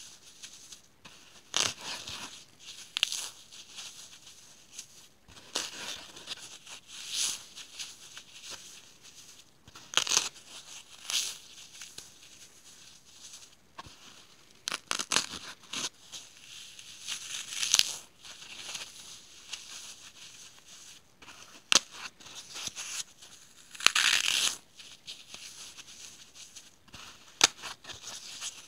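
Dry, unsoaked, slightly baked gridded floral foam being broken and crushed between gloved fingers: irregular crisp crumbling and crackling crunches about every second or so, with one longer, louder crunch a little after two-thirds through.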